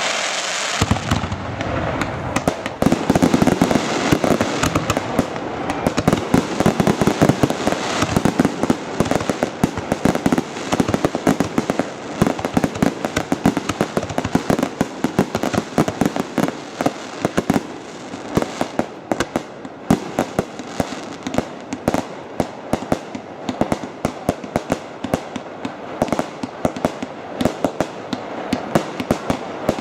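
Fireworks display: a dense, continuous barrage of bangs and crackling cracks. A steady hiss in the first second gives way to the barrage, which turns into rapid separate sharp pops in the second half.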